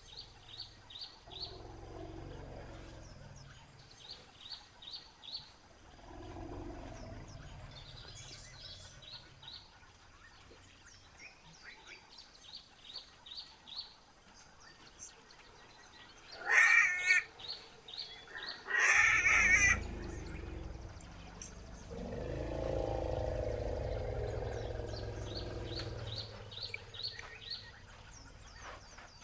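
Newborn elephant calf in distress: two loud screams about halfway through, with deep elephant rumbles coming and going before and after them, the longest following the second scream. Rapid, high chirping goes on in the background.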